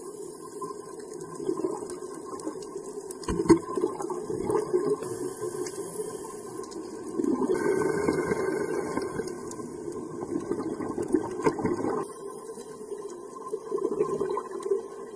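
Underwater bubbling and gurgling from a scuba diver's regulator exhaust bubbles, heard through an underwater camera, louder for about five seconds past the middle.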